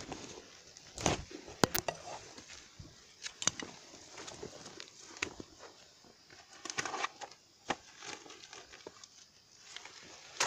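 Irregular dry rustling and crackling, with scattered sharp clicks, the sharpest about a second in and near the end.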